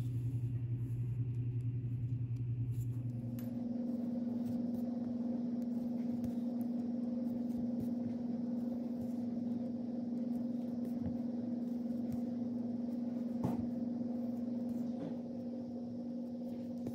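A steady low hum that shifts to a higher pitch about three and a half seconds in, with one faint click about thirteen seconds in.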